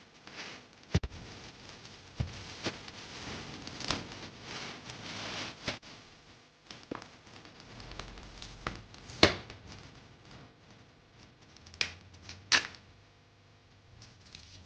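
Packaging being handled during an unboxing: rustling with several sharp clicks and knocks, the loudest two about nine and twelve seconds in.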